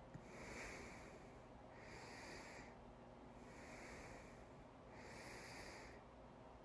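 A person breathing quietly: four soft breaths, each about a second long, coming about every second and a half.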